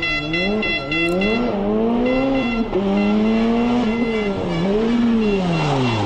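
Rally car engine revving hard, its pitch climbing and dropping about five times as it is driven on and off the throttle. A steady high whine fades out in the first couple of seconds.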